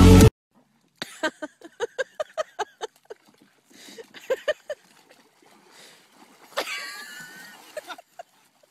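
A dog barking in quick runs of short barks, about five a second, with a louder, wavering cry near the end.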